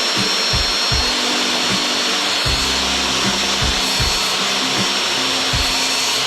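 A power tool's motor running steadily with an even rushing noise and a faint high whine, over background music with a regular beat.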